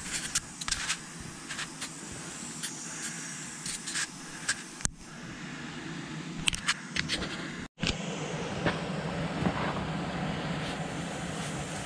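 Steady mechanical hum and hiss with scattered sharp clicks and taps; the sound drops out abruptly twice.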